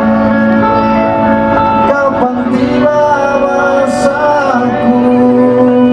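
Two male singers performing a duet into handheld microphones over backing music, singing long held notes.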